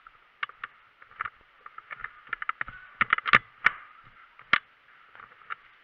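Irregular sharp clicks and knocks, loudest in a quick cluster about three seconds in and once more about four and a half seconds in.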